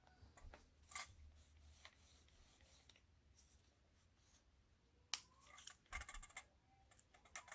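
Camera lens component clicking as it is handled: scattered small clicks with light rubbing, a sharp click about five seconds in, then a fast run of clicks near the end.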